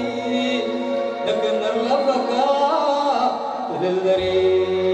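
Live Eritrean wedding music: a man singing long, wavering notes through a microphone over electronic keyboard accompaniment, with a low bass note coming in near the end.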